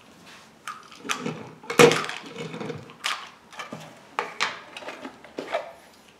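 Handling of a toy train's box and packaging: a series of irregular knocks, clatters and rustles, the loudest just under two seconds in.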